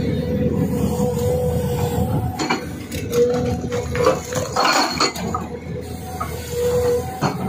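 SHS 81 hydraulic rock breaker on a Tata Hitachi 200 excavator working its chisel into rock. Irregular sharp metallic clinks and knocks ring out over the excavator's steady machine hum.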